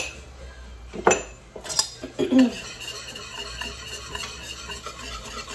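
A metal utensil knocks and clinks a few times against a stainless steel pot, then settles into steady stirring and scraping through sauce in the pot.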